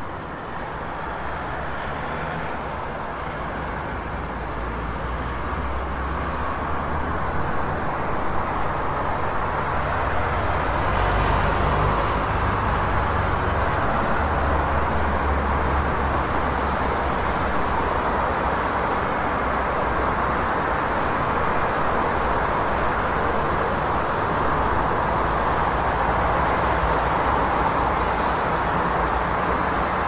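Dense city street traffic: a steady wash of many car engines and tyre noise with a low rumble underneath. It builds over the first ten seconds or so and then holds steady.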